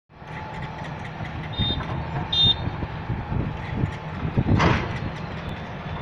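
Diesel engine of a tracked hydraulic excavator running at a worksite, with scattered knocks. Two short high beeps sound in the first half, and a brief rush of noise comes near the end.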